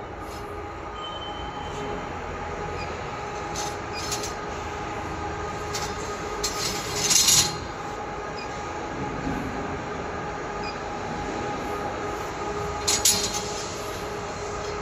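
Steady running hum of a CO2 laser cutting machine, with several held tones, broken by a few short louder hisses, the longest about seven seconds in.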